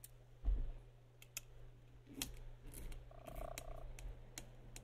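Small Phillips screwdriver working the screws out of a TomTom GPS unit's main board: faint scattered clicks and scrapes of metal on the screw heads and plastic case, with a soft knock about half a second in. A pulsing buzz comes in about three seconds in.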